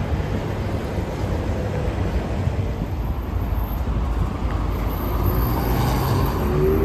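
City street traffic: a steady rumble of passing vehicles, and near the end a vehicle's engine rising in pitch as it accelerates.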